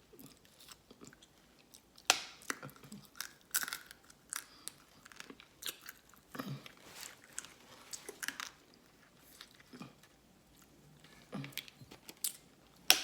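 A person chewing and crunching blue crab close to the microphone, with irregular sharp clicks and crunches, the loudest about two seconds in and at the very end.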